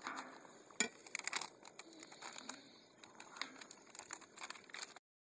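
Knife slicing a red bell pepper on a plastic cutting board: a run of light, crisp cuts and taps, the sharpest about a second in. The sound cuts out abruptly near the end.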